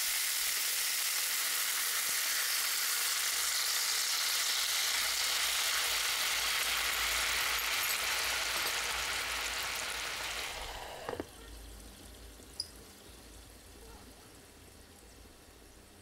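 Chicken thighs sizzling hard in hot oil and bubbling teriyaki sauce in a nonstick frying pan. About eleven seconds in, a knock as a glass lid goes on, after which the sizzle carries on much quieter and muffled under the lid.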